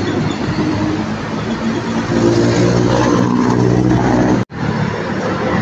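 Heavy diesel trucks passing close in street traffic: a low engine drone with tyre and road noise that swells in the middle, broken by a sudden brief gap about four and a half seconds in.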